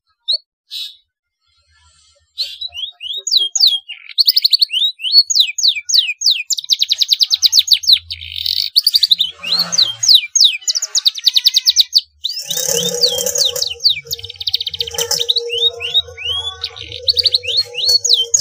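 Domestic canary singing, its song filled with blackthroat (yellow-rumped serin) phrases: a couple of short chirps, then from about two seconds in a loud, continuous run of quick sweeping notes and fast trills. About twelve seconds in, a steady low tone joins under the song.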